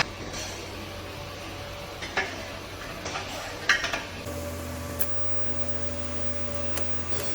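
Steady machine hum with a few light metallic clinks; about four seconds in, a louder, steadier hum with a held tone starts.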